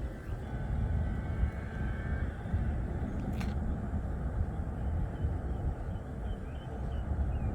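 Steady low background rumble, with one short click about three and a half seconds in.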